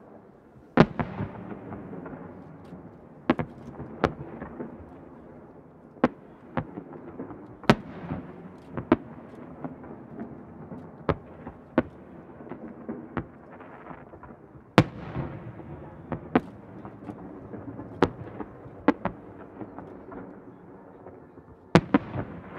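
Aerial firework shells bursting: a string of sharp bangs, one every second or two and sometimes in quick pairs. Each bang trails off into a long rumbling echo. The loudest come about a second in, around the middle and near the end.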